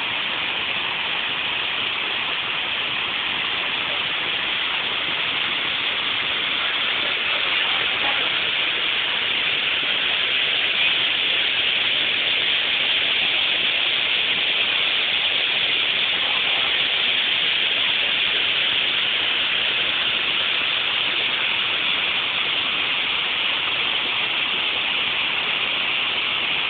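Water pouring over a dam in a wide waterfall: a steady, loud rush of falling water.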